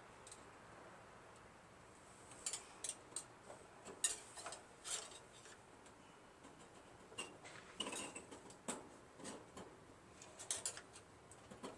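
Light metallic clicks and ticks, irregular and in small clusters, from hand-working a new choke cable and its linkage with small tools.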